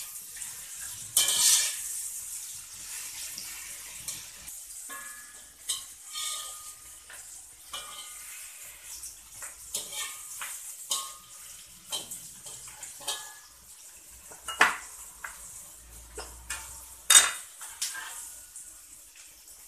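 Metal spatula scraping and clanking against a metal wok as sliced shallots, onion, ginger and garlic sizzle in it. The clanks come at irregular intervals over a steady sizzle, the loudest about a second in and near the end.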